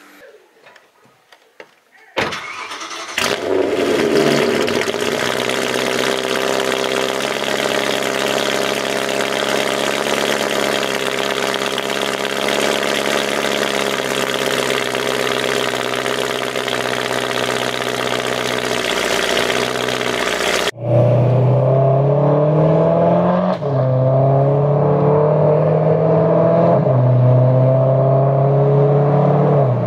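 BMW E92 M3's V8 starting about two seconds in and running steadily while it warms up on fresh oil. After a cut, the car is driven, the engine note climbing and dropping back in steps as it shifts up through the gears.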